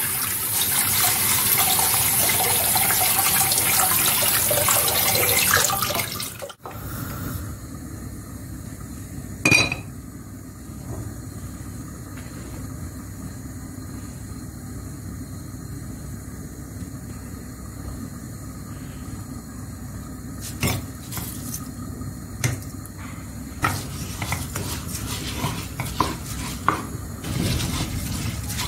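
Kitchen tap running into a sink for about six seconds, then cutting off. Afterwards, dishes and cutlery clink and knock now and then, with one ringing clink about ten seconds in.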